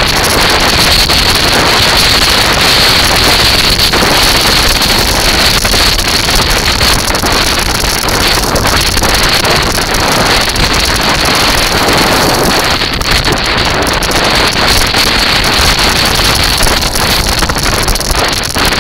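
Loud, steady wind buffeting the microphone with the rumble of a kite buggy's wheels rolling over a sand and shingle beach.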